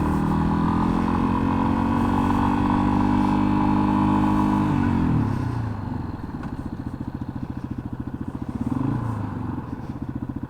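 2021 Yamaha XT250's single-cylinder engine running steadily under way, then its revs fall off about five seconds in as the throttle closes. It settles into a low, fast, even pulsing beat, with a short blip of revs near the end.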